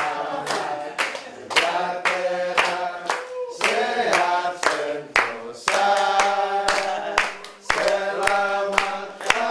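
A group of people singing together in unison and clapping their hands in time, about two claps a second.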